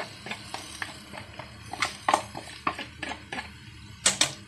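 Raw rice tipped from a plastic bowl into a kadai of frying vegetables, then turned with a spatula against the pan: irregular clicks, taps and scrapes.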